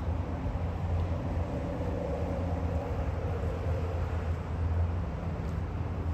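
Steady rumble of distant road traffic, swelling a little in the middle as a vehicle passes.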